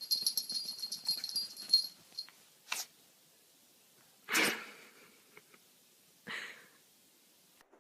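High-pitched squeaking for about the first two seconds, then a puppy sneezes three times, short sharp sneezes spaced a couple of seconds apart, the middle one loudest.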